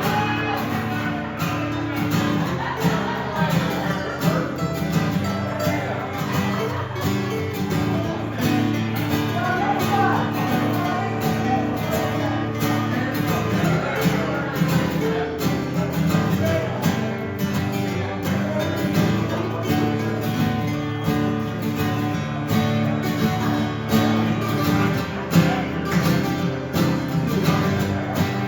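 Live acoustic guitar music, an instrumental break in a country-rock song: steady strummed rhythm with a melody line played over it.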